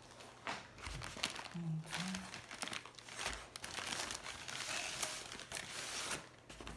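Plastic packaging crinkling and crackling as it is handled: an air-column bubble wrap tube and the plastic-wrapped kit inside being pulled apart. It comes in irregular rustles, thickest a little past the middle.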